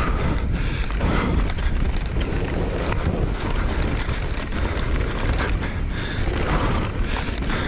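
Mountain bike descending a dirt trail at speed, with wind buffeting the camera microphone in a steady low rumble. Knobby tyres roll over dirt and stones, and the bike rattles in many short ticks over the bumps.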